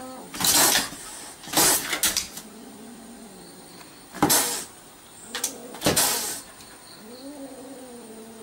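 A cat meows once near the end, with about six short, harsh noisy bursts in the seconds before it.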